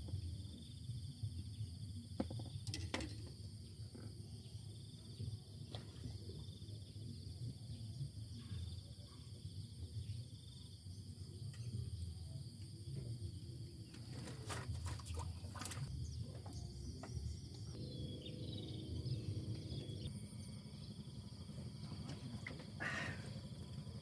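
Outdoor ambience: a steady low rumble and a steady high insect drone, broken by a few sharp clicks and a short low hum about three-quarters of the way through.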